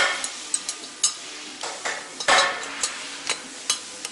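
Metal tools clicking, tapping and clinking as they are handled between runs of a valve seat grinder. There is a short scrape about two seconds in.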